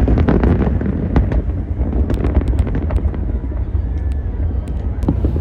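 Fireworks display: a string of bangs and crackles from bursting shells, over a steady low rumble.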